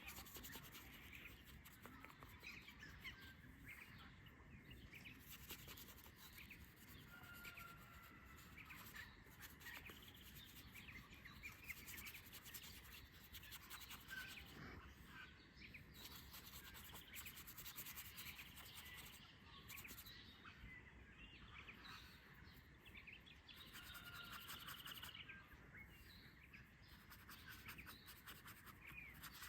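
Faint rubbing and scratching of a paintbrush on sketchbook paper, with birds chirping faintly now and then.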